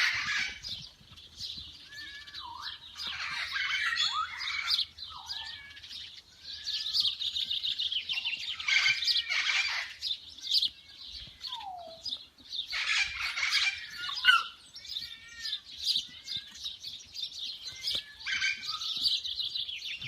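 Several small birds chirping and singing at once, a dense chorus of rapid trills and short whistled notes coming in bouts, with a few brief falling whistles.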